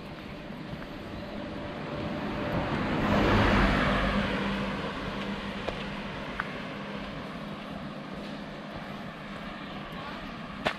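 A motor vehicle passes on the road alongside, its tyre and engine noise swelling to a peak about three and a half seconds in and then fading away.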